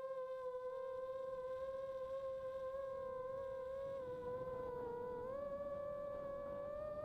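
Brushless motors and propellers of a 285 mm carbon-frame FPV quadcopter whining steadily, heard from the onboard camera. The pitch dips slightly and then steps up about five seconds in as the throttle changes, with a hiss of rushing air growing as it flies.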